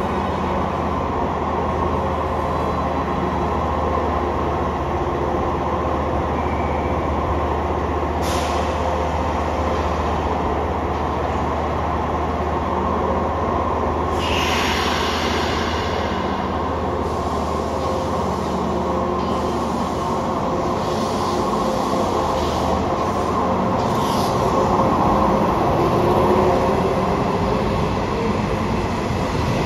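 Nishitetsu 5000 series electric train standing at the platform with a steady low hum from its onboard equipment, broken by three short bursts of air hiss. In the last few seconds it pulls away, the hum giving way to a rising whine from its traction motors.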